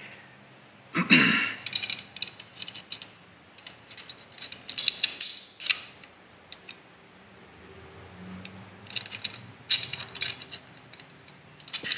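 Steel parts of a Tokarev TT-C pistol clicking and scraping as the slide and barrel are fitted onto the frame during reassembly: scattered sharp metal clicks, the loudest about a second in, with small runs of clicks later.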